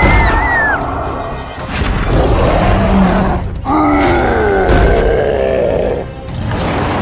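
Background music with a monster's vocal sound effects: pitched cries that slide downward, with a brief break in the sound a little past halfway.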